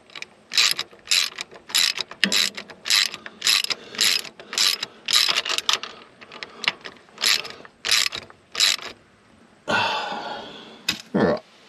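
Hand ratchet wrench clicking stroke after stroke, about two a second, as it runs down the nuts on a Fordson Power Major's connecting-rod big-end bearing cap. The strokes break off near the end for a couple of longer runs.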